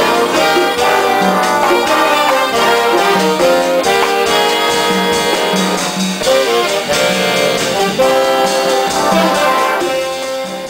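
Jazz band with a horn section playing, trombones and trumpets to the fore, fading out near the end.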